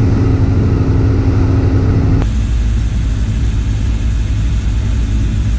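A boat's inboard 350 engines running under way, a steady low rumble. About two seconds in the sound changes abruptly and loses most of its higher part, while the low rumble goes on.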